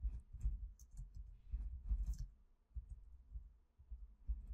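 Computer keyboard typing: a run of irregular keystrokes, each a short click with a dull thump.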